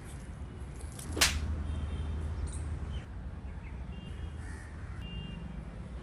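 A crow caws once, about a second in, over a steady low outdoor rumble, with a few faint high chirps later.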